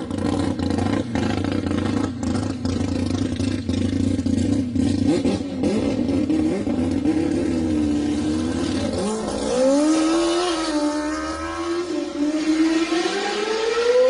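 Mazda rotary engine revving through its exhaust in short wavering blips, then from about nine seconds in pulling steadily, its pitch climbing as the car accelerates.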